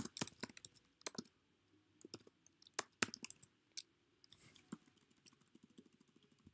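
Computer keyboard being typed on: faint, irregular key clicks as a name is entered.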